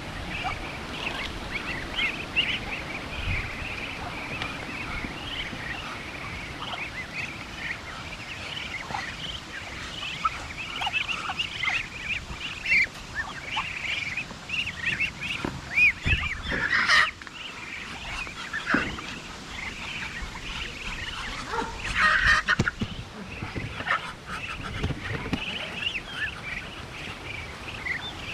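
Flock of ducks and other poultry calling while being fed black soldier fly larvae: many short, high, overlapping calls, with louder calls about 17 and 22 seconds in.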